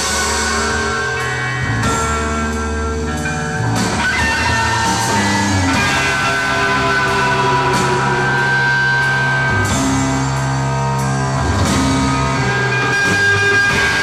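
Psychedelic rock band playing live, with electric guitar lines over sustained bass notes that change pitch every second or two.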